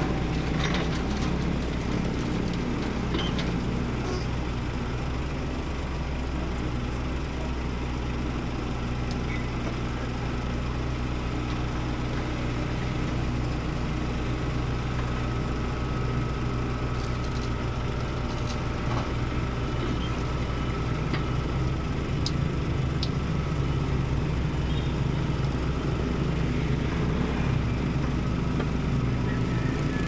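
Diesel engine of a Doosan DH55 mini excavator running steadily under load as the machine pushes down on its boom and bucket to raise its tracks onto a truck bed, with a few light knocks.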